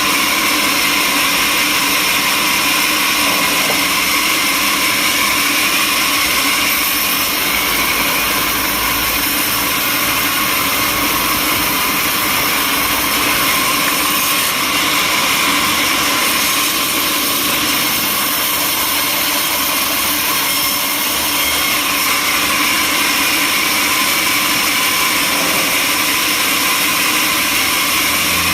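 Sawmill machinery running steadily: a loud, even mechanical whine and hiss that does not change.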